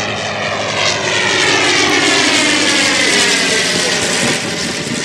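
Engine and propeller of a 1918 Thomas Morse S4-B biplane on a low pass overhead. The drone swells to its loudest mid-pass, and its pitch falls steadily as the aircraft goes over.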